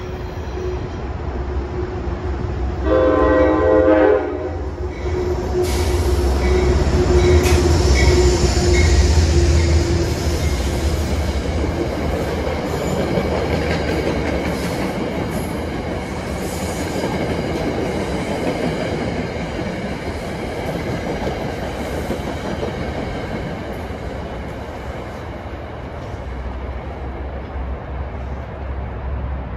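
A Metro-North New Haven Line electric commuter train sounds one short horn blast about three seconds in. It then runs through the station: wheels click over the rail joints and a long rumble of passing cars fades slowly.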